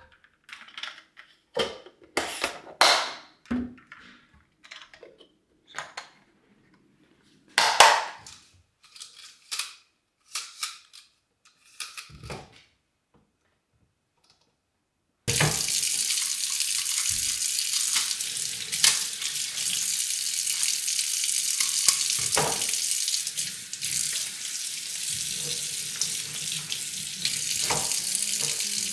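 Scattered light clicks and knocks of kitchen items being handled. Then, about fifteen seconds in, a kitchen faucet starts running water steadily into a sink.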